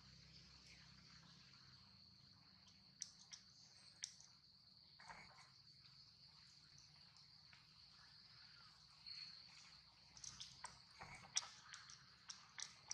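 Faint, steady high-pitched insect drone, with scattered sharp clicks that come more often near the end.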